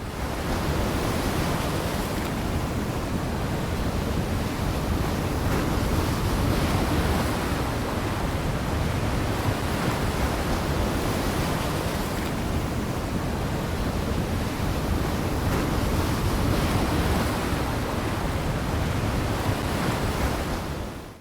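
A steady rushing noise with slight slow swells, fading in at the start and fading out at the end.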